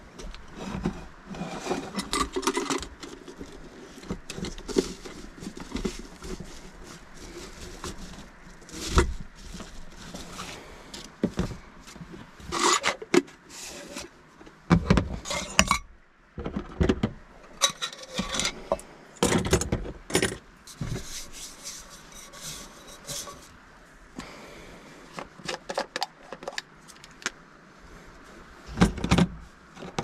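Camping cookware being handled: clinks, scrapes and knocks of a metal pot, a GigaPower gas canister and a small folding canister stove being set down and fitted together on a plastic lid. The sounds come in short, irregular clusters of sharp clicks with pauses between them.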